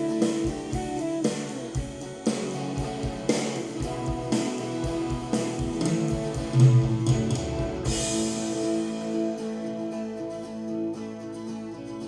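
Recorded band music played back for a virtual sound check: guitar over a drum beat, with a cymbal-like crash about eight seconds in, after which held guitar chords carry on with the beat lighter.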